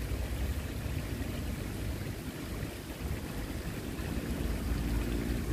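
Wind buffeting the microphone: a steady low rumble with a faint hiss above it.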